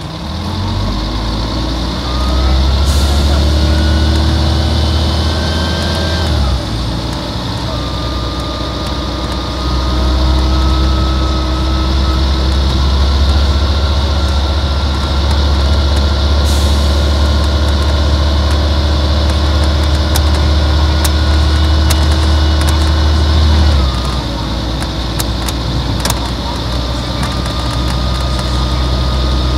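Volvo D10A-245 diesel engine of a Volvo Olympian double-decker bus pulling under load, with a whine that rises in pitch as the bus gathers speed. About six seconds in the pitch drops as the ZF 5HP590 automatic gearbox shifts up, then it climbs slowly again until the engine eases off near the end.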